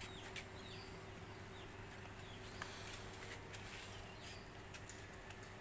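A small bird calling over and over: short, curving, high-pitched chirps about once a second, over a faint steady low hum.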